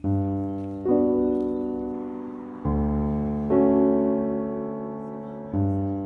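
Background music: slow solo piano. A low bass note is struck with a chord, followed by another chord less than a second later, and the pattern repeats about every three seconds. Each chord is left to ring and fade.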